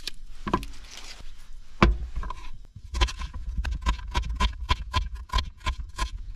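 Papery rustle of onion skin being peeled with a knife, a single knock about two seconds in, then a kitchen knife chopping an onion on a wooden chopping board in quick, regular strokes, about four or five a second, from about three seconds in.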